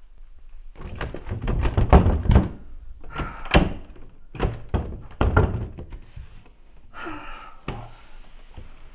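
Thumps and knocks against a wooden interior door: a quick run of them about a second in, then a few single heavy thuds.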